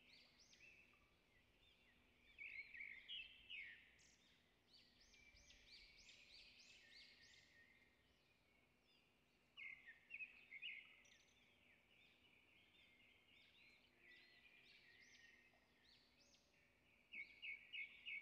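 Near silence with faint birds chirping in the background, in short spells about three seconds in, around ten seconds in, and near the end.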